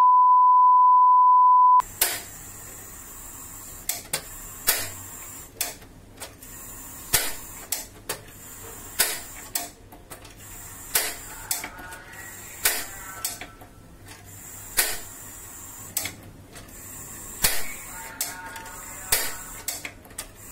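A steady beep tone for about two seconds, then a run of sharp, irregular clicks and taps of a metal spoon against a pan on a gas hob, over a steady background hiss.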